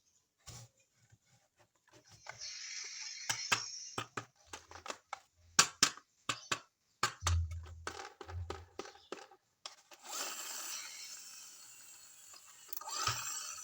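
Plastic toys and their packaging being handled close to the microphone: scattered clicks and taps, a few dull thumps, and a longer rustling crinkle near the end.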